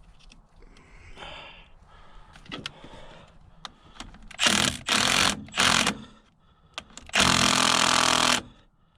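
A handheld power tool run in three short bursts, the last and longest about a second, on a battery cable terminal whose nut is corroded. Quieter handling noises come before the bursts.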